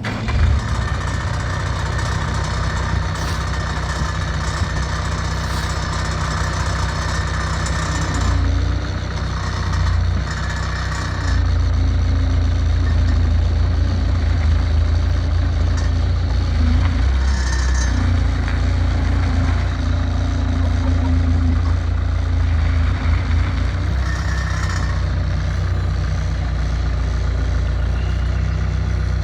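Bobcat T140 skid steer's diesel engine running steadily, growing louder about a third of the way in.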